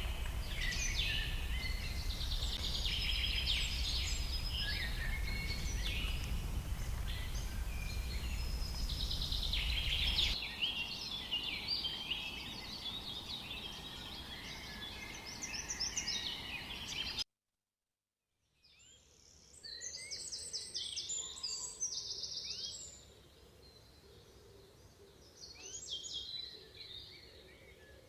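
Many birds chirping and trilling over a low rumble, which eases off about ten seconds in. The sound cuts out completely for about a second past the middle, then quieter birdsong carries on.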